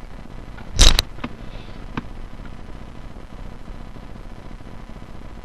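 A loud, brief knock about a second in, then two sharp light clicks, from flicked plastic bottle caps striking and landing.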